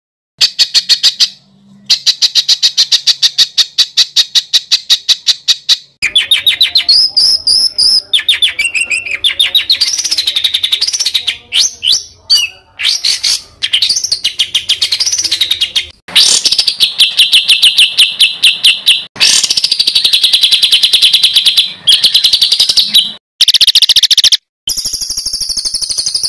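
Edited compilation of songbird calls used as a masteran tutor recording. Fast runs of sharp repeated notes, about ten a second, alternate with whistled phrases that rise and fall. Segments cut off abruptly one after another, and a higher, fluttering song begins near the end.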